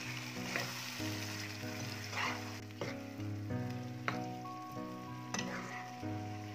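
Chicken and green chutney gravy sizzling in a nonstick pan while a spatula stirs it, with about five sharp scrapes of the spatula against the pan.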